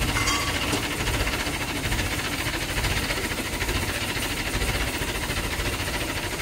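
A crane's engine running steadily with a low rumble while it holds a heavy paper-cutting machine in the air.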